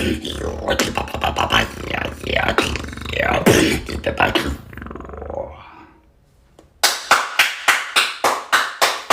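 A person beatboxing: a dense run of vocal beatbox effects with sliding pitches, fading out about five seconds in. After a short pause comes an even series of sharp percussive hits, about four a second, that stops suddenly near the end.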